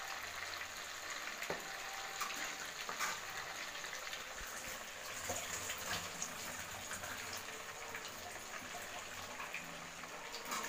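Masala-coated fish pieces deep-frying in hot oil: a steady sizzle with scattered small crackles.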